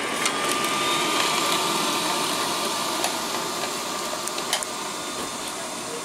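Liectroux B6009 robot vacuum cleaner running over carpet: a steady motor and suction noise with a thin whine and a few sharp clicks. It grows slightly fainter near the end as it moves away.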